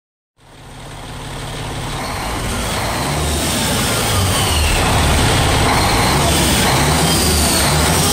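Yuchai YC6T540C turbocharged six-cylinder marine diesel running in a ferry's engine room: a loud, steady, deep rumble with a faint high whine wavering above it. It comes in about half a second in and swells over the first few seconds before holding level.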